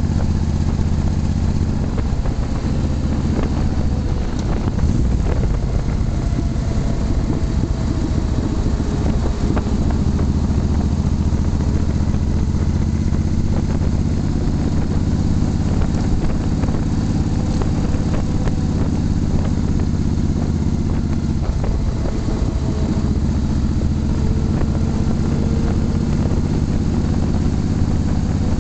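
Motorcycle engine running while riding at road speed, its pitch drifting up and down with the throttle and breaking off briefly twice, about two seconds in and again later, as the rider eases off.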